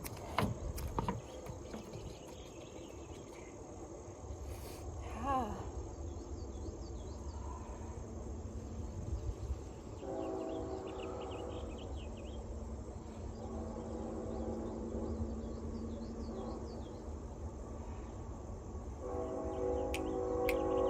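Crickets and other insects trilling steadily, one high thin note held throughout, with a few faint chirps over them. From about halfway, a sustained humming chord of several pitches comes and goes.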